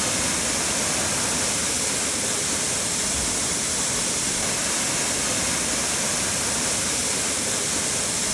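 Waterfall: water falling and splashing in a steady rushing hiss.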